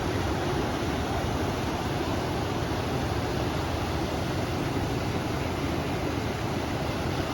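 A river flowing on a windy day: a steady, unbroken rush of water and wind, heaviest in the low end.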